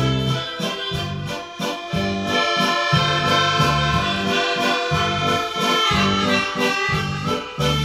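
Instrumental background music with a regular bass beat under a melody.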